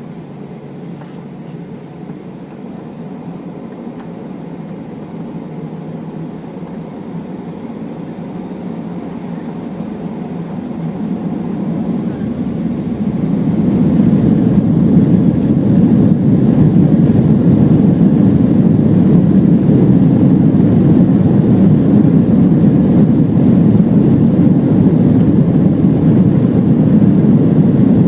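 A Boeing 737-800's CFM56 jet engines heard from inside the cabin: a low rumble that grows steadily louder over the first dozen or so seconds, then holds loud and steady. This is the engines spooling up to takeoff thrust for the takeoff roll.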